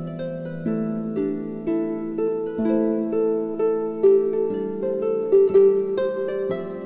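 Background music: a harp playing a lilting Celtic folk melody of plucked notes over a bass line.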